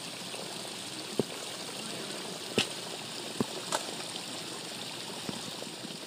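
Water splashing down a small stepped fountain cascade, a steady rush, with a few sharp clicks over it.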